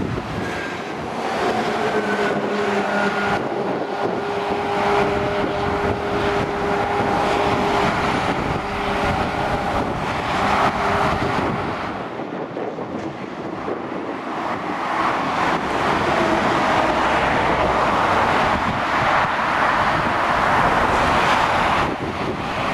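Motorway traffic passing below: engine and tyre noise from cars and heavy trucks, with some wind on the microphone. A steady engine hum runs through the first ten seconds. After a brief dip about twelve seconds in, a louder rush of tyres and engines builds as the trucks go by, loudest near the end.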